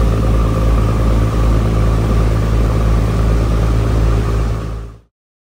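Engine running steadily, a low drone with a few level tones, fading out to silence about five seconds in.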